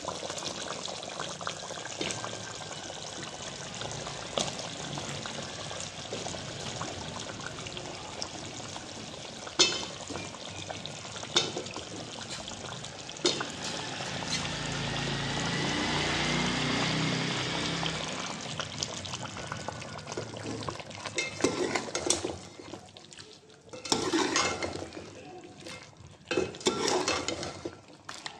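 Chicken in masala sizzling steadily as it fries in a steel pot, with a steel ladle clinking against the pot a few times. The sizzle swells for a few seconds partway through, and near the end the ladle scrapes in separate strokes as the potato chunks are stirred into the masala.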